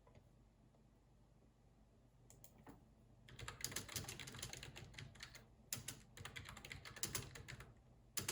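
Typing on a computer keyboard: after a quiet start, a few light keystrokes, then two quick runs of key presses, with one sharper keystroke near the end.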